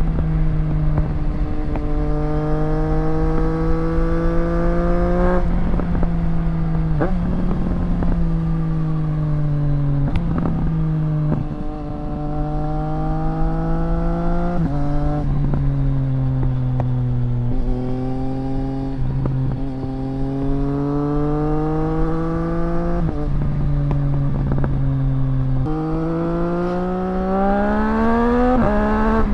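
2024 Triumph Street Triple RS's three-cylinder engine through a Zard titanium exhaust, heard from a mic in the rider's backpack while riding. The engine pitch jumps and drops sharply several times with gear changes and throttle, then rises near the end as the bike accelerates.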